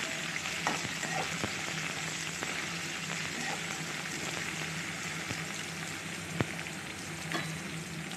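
Diced potatoes, sliced onions and dried red chillies frying in hot mustard oil in a kadai: a steady sizzle with scattered pops. One sharp click about six and a half seconds in is the loudest sound.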